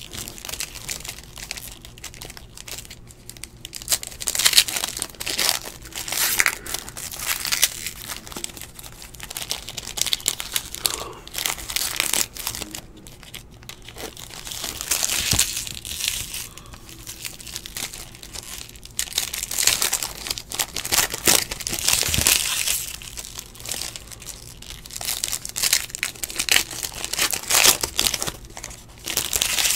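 Foil wrappers of 2017 Panini Playoff Football card packs being torn open and crinkled by hand, in irregular bursts of crinkling.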